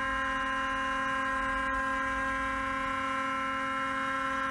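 Steady hum on one held tone with evenly spaced overtones, unchanging: a sustained synth drone in the background music.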